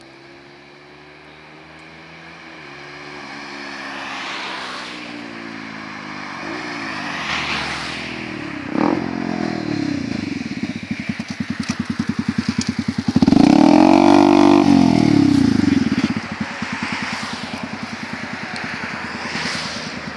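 Small sport motorcycle's engine growing louder as it approaches, with changes in pitch as it rides up and pulls in. About thirteen seconds in it gives one short loud rev, then settles to a steady, pulsing idle.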